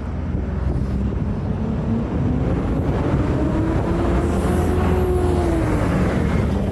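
A road vehicle passing close by: a steady engine and tyre rumble that grows louder, with an engine tone that rises and then falls in pitch as it goes past.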